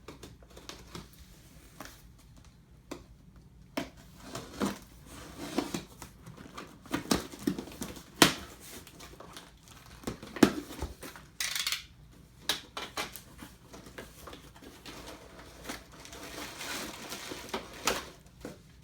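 Unboxing a laptop docking station: irregular clicks and knocks of cardboard and plastic being handled, with bursts of packaging rustling near the middle and toward the end.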